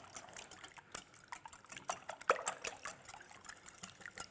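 Metal wire whisk beating raw eggs in a glass bowl: rapid, irregular clicks of the wires against the glass over a wet sloshing of the egg.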